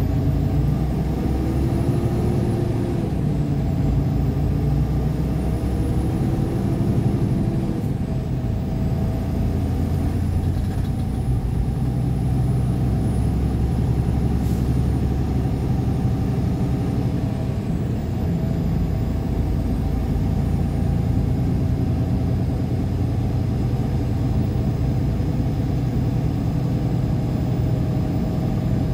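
Steady engine and tyre noise of a vehicle driving at highway speed, heard from inside the cabin, with a faint hum that shifts in pitch in the first few seconds.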